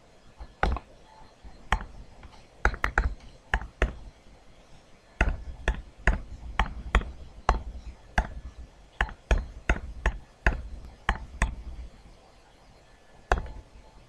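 Stylus tapping on a tablet computer's screen: about two dozen sharp, irregular taps in quick runs, with a pause about four seconds in and a last single tap near the end.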